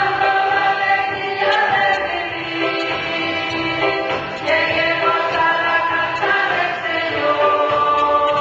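A choir of women singing a hymn in unison. The notes are held and move smoothly from one pitch to the next.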